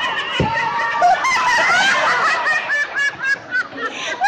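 Spectators, many of them children, shouting and laughing over one another in high voices, with short repeated calls in the second half. There is a low thump about half a second in.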